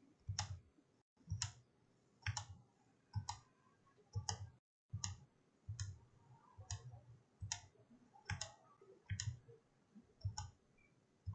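Faint computer mouse clicks at a steady pace, about one a second, each a sharp click with a dull knock under it.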